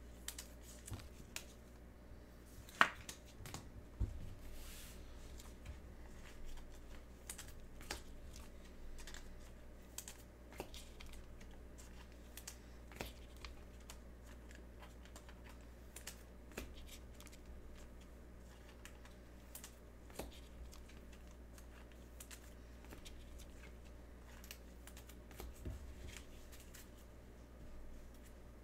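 Faint light clicks, ticks and rustles of small things handled on a tabletop, scattered irregularly, with one sharper click about three seconds in and a dull thump a second later.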